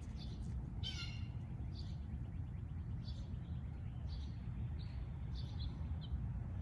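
Small birds chirping: short high calls at uneven intervals, about eight in all, over a steady low rumble.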